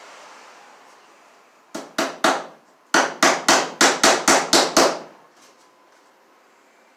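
Claw hammer driving a cable staple into a wooden pole-barn girt to fasten electrical cable: three quick taps, then a run of eight blows at about four a second.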